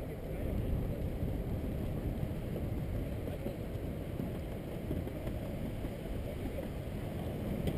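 Steady low rumble of wind buffeting a bicycle-mounted camera's microphone, mixed with bicycle tyres rolling over the bridge deck while riding.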